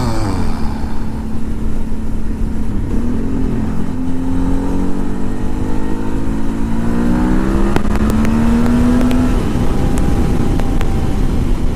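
Motorcycle engine under way, with steady wind and road rumble; from about three seconds in it accelerates, its pitch rising steadily for several seconds before levelling off.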